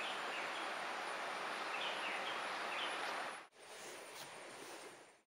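Forest ambience: a steady hiss with a thin high steady tone and a few short bird chirps. About three and a half seconds in it cuts to a quieter stretch of the same kind of hiss, which stops abruptly just before the end.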